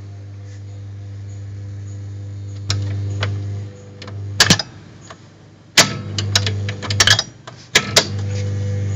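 A Webster Chicago wire recorder's control lever and mechanism being worked by hand, giving a run of sharp clicks and clunks that come thickest in the second half. Under them runs a steady electrical hum from the valve audio equipment.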